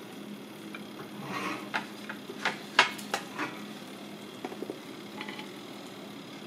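Metal dish gripper clanking against a cast iron gratin dish as it is lifted off a toaster oven's wire rack and set onto a wooden base. The clicks and clanks come in a short cluster in the first half, the loudest near the middle, over a steady low hum.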